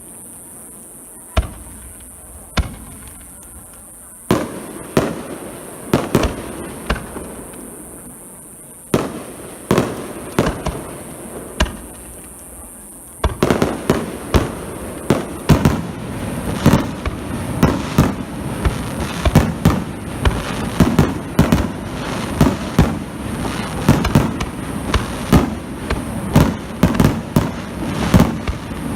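Fireworks display: single aerial shell bursts going off a few seconds apart, each a sharp bang with an echoing tail. About thirteen seconds in, this turns into a dense rapid-fire barrage of many bursts a second.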